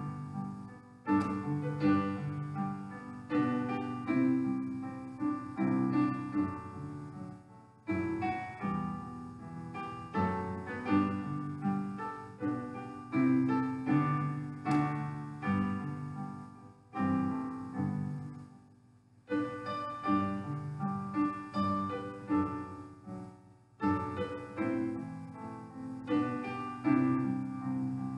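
Solo piano prelude music, played in phrases separated by short pauses.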